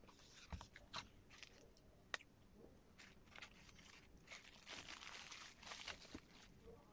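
Faint crinkling and crumpling of a foil food wrapper being handled, with a few sharp clicks early on and denser crackling about four to six seconds in.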